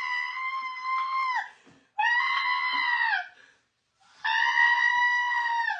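A high-pitched voice wailing in three long drawn-out cries, each held steady and then dropping in pitch as it breaks off, with short silences between.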